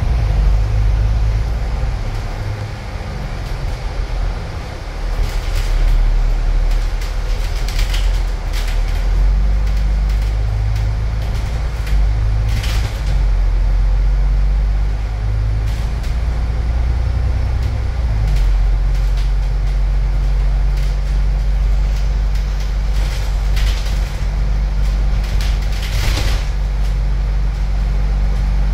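Alexander Dennis Enviro500 double-decker bus's diesel engine and drivetrain running, heard from inside the upper deck: a loud low drone that changes pitch in steps as the bus pulls along. A few short sharp hisses or rattles sound over it along the way.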